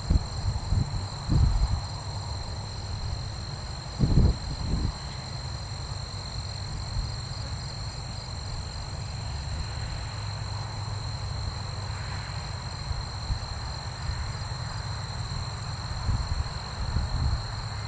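Distant low drone of a B-17 Flying Fortress's four radial engines on its takeoff run, growing slightly near the end as the bomber comes toward the listener. Steady high insect chirring runs over it, and a few wind buffets hit the microphone near the start and about four seconds in.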